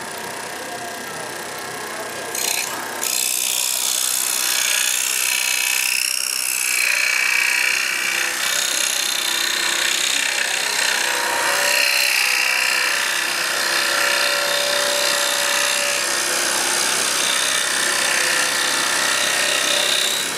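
Electric scroll saw running with its blade cutting through a thick wooden block. It starts quieter and gets louder from about three seconds in, a steady rasping saw noise whose tones shift as the cut goes on.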